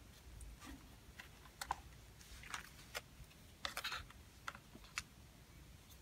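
Light plastic clicks and taps as a brush cutter's foam air filter element and plastic air filter cover are handled and fitted back into place, a scattering of short faint clicks.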